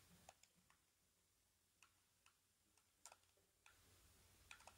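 Near silence: room tone with a few faint, irregularly spaced clicks from handling.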